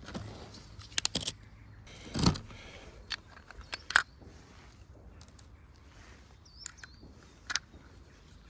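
Scattered metallic clicks and knocks from handling a Colt Single Action Army pellet revolver, with a heavier knock about two seconds in.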